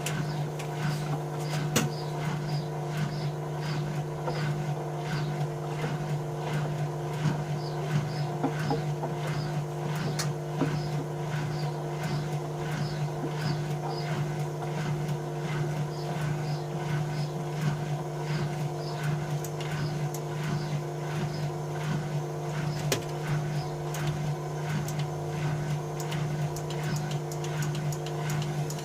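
Bauknecht WA 1460 front-loading washing machine running its drum, with a steady motor hum and a fast, even repeating rhythm over it.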